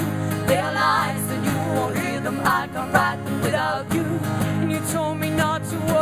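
Live acoustic band performance: strummed acoustic guitars and a drum kit keep a steady beat under a sung melody.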